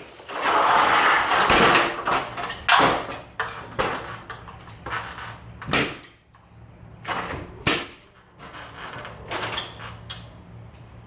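Metal hardware being handled while a garage door opener's door arm is hooked up: a rattling scrape for about two seconds, then a series of separate sharp knocks and clinks.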